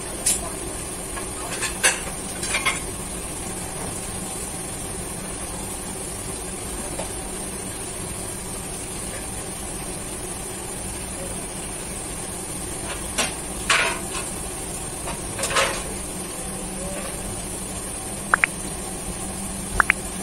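Commercial kitchen ambience: the steady hum of the exhaust hood and kitchen equipment, broken by short clinks and clatters of dishes and utensils, a few near the start and a cluster later on.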